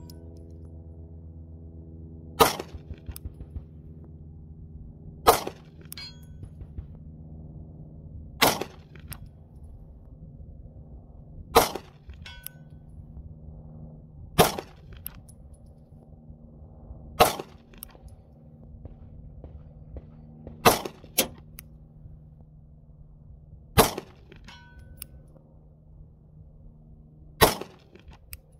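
Sig P365X 9mm pistol firing Federal 124-grain +P HST: nine slow, aimed shots about three seconds apart. About a second after some shots a faint distant ring comes back, the bullet striking a steel target downrange.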